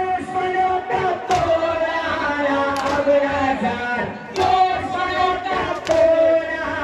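Large crowd of men chanting together in long, held notes, with a few sharp strikes through it.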